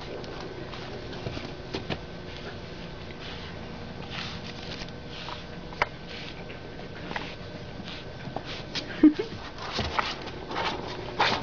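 Pug puppies moving about on a blanket among plastic toys: soft rustling and scattered light taps over a steady faint hum, with a short squeak about nine seconds in and busier tapping near the end.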